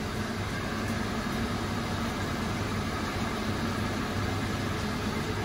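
Mushroom duxelles cooking in a frying pan, a steady sizzle and hiss as its moisture cooks off, with a low hum underneath.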